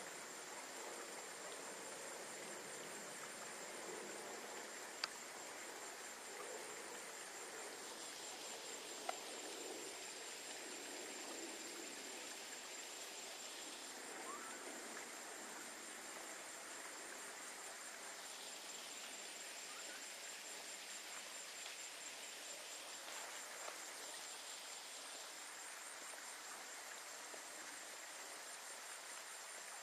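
Faint outdoor ambience: a steady high-pitched buzz with a fast pulse, over a soft background hiss, with two sharp clicks about five and nine seconds in.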